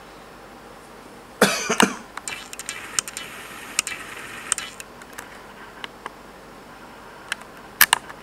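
A person coughs twice in quick succession about a second and a half in, followed by scattered light clicks and taps.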